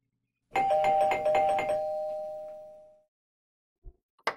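Electric doorbell ringing: a two-tone bell struck rapidly several times for about a second, then its ring fading away over the next second and a half. A short dull thump comes near the end.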